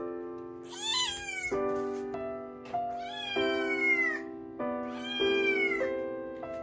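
Munchkin kitten meowing three times, about a second in, around three seconds and around five seconds; each meow rises and then falls in pitch at the end. Background music with held chords plays underneath.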